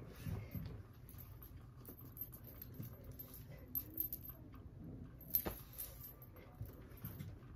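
Faint rustling of clothing and small movements, with light jingling from metal bracelets on a wrist and one sharp click about five and a half seconds in.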